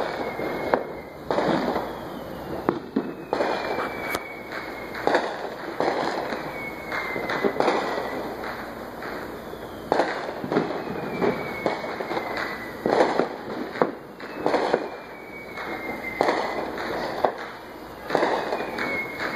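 Fireworks and firecrackers going off: many sharp bangs and pops, some in quick clusters. A faint falling whistle comes back every three to four seconds.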